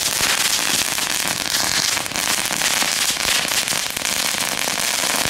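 Homemade firework device burning on the ground with a continuous dense crackling and fizzing, made of many rapid small pops, holding steady throughout.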